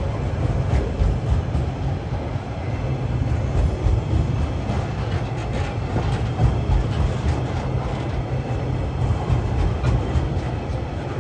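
Freight train wagons loaded with logs rolling past at close range: a steady rumble of steel wheels on the rails with scattered light clicks as the wheelsets go by.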